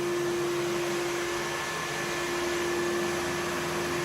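Samsung VR20M7070WD robot vacuum running: a steady motor and suction noise with a constant hum.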